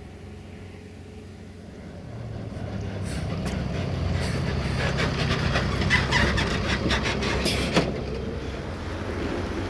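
A vehicle engine rumble that builds and grows louder from about two seconds in. A rapid run of sharp clicks and rattles joins it and is strongest around six to eight seconds.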